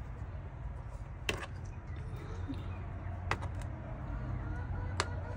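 Hen's eggs set down into a plastic bowl, a few short sharp clicks and knocks as they land, over a low steady hum.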